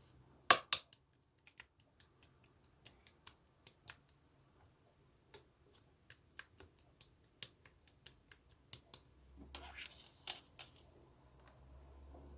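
Green slime worked by hand, giving a run of irregular sharp clicks and pops, the loudest just after the start, with a softer squishing stretch about nine and a half seconds in.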